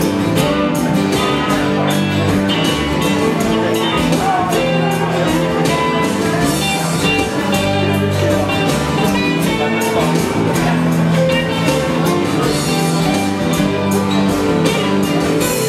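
Live band playing an upbeat song: several strummed acoustic guitars, electric guitar and keyboard over a steady beat.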